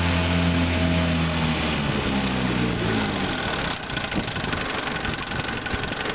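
1961 Johnson 5.5 hp two-stroke twin outboard motor being throttled back: its steady running note falls in pitch over a second or two, and about four seconds in it drops to idle with a looser, uneven beat. The freshly rebuilt motor idles down cleanly, which the owner takes as the sign of one that is set up right.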